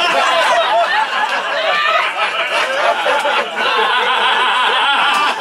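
Theatre audience laughing loudly for several seconds, many voices overlapping, easing briefly about three and a half seconds in before swelling again.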